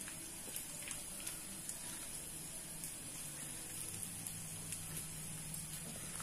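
Onion pakodi batter frying in hot oil in a small pan: a steady, faint sizzle with light scattered crackles.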